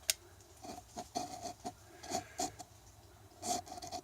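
Light, irregular taps and scrapes from handling a cartridge oil filter and its housing, about a dozen small knocks and rubs, a little quicker near the end.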